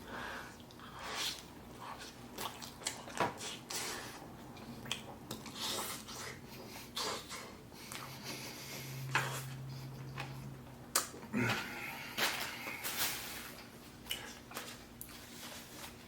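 Close-miked chewing and wet mouth sounds of a person eating: irregular smacks and clicks throughout, with a brief low hum of a voice near the middle.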